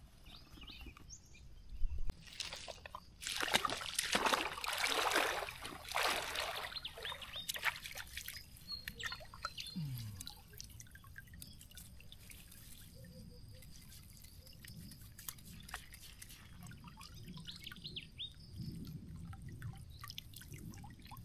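Water splashing and sloshing as a person wades through a shallow pond in rubber boots, loudest a couple of seconds in and lasting several seconds. Later come scattered drips and trickles of water, and near the end water runs off a mesh shrimp trap lifted out of the pond.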